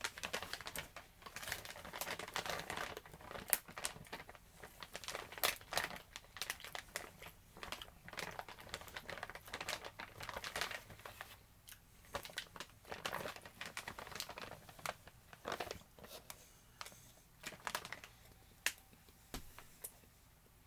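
Plastic snack bag crinkling and rustling as it is handled, in irregular spells of crackling that thin out in the last couple of seconds.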